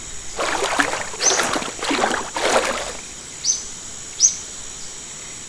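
Water splashing in four quick swishes over the first three seconds, with short downward-hooking bird chirps repeating every second or so.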